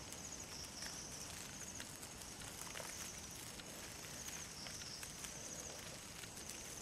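Faint night ambience: insects chirping in short high trills, recurring about once a second, over small scattered rustles in dry leaf litter as the blue krait crawls across it.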